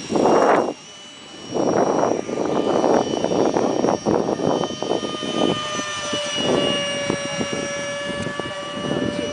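A Multiplex Gemini radio-controlled model airplane flying high overhead, its motors giving a thin, steady whine of several high tones. Loud, irregular gusts of rushing noise come and go over it, strongest near the start and through the first half.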